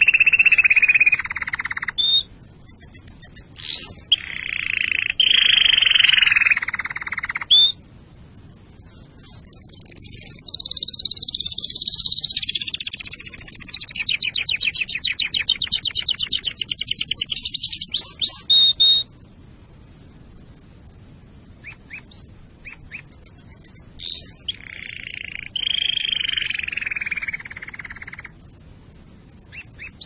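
Domestic canary singing in phrases of fast rolling trills and rattles, with short pauses between them. The longest phrase is a high, fast trill lasting about ten seconds in the middle.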